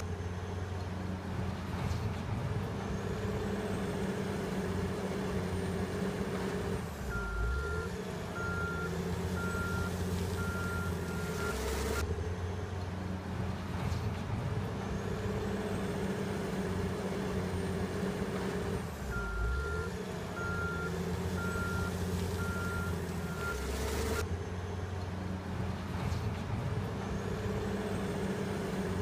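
Caterpillar 980 wheel loader's diesel engine running steadily. Twice its backup alarm sounds a short run of evenly spaced beeps as it reverses, once about a third of the way in and again about two-thirds in. The engine note shifts as each run begins.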